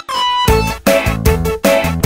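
Background music with a steady beat; the low beat drops out briefly at the start and comes back in about half a second in.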